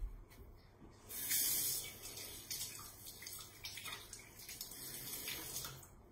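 Kitchen tap running into a sink, with hands rinsed under the stream. The water comes on about a second in, loudest just after, and stops near the end.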